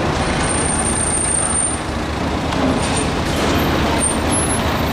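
Steady rumble of road traffic, heavy vehicles among it.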